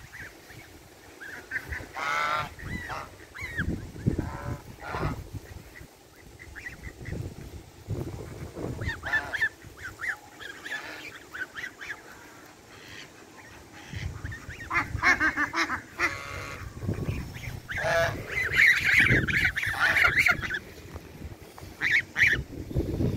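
A flock of domestic geese honking in scattered bouts of repeated calls, busiest in the second half.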